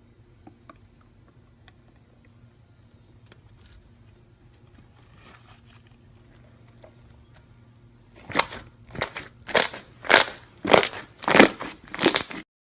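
Slime being pressed and squeezed by hand, with faint small crackles at first. Then a run of about seven loud crunching squeezes, roughly one every 0.6 seconds, which stops abruptly.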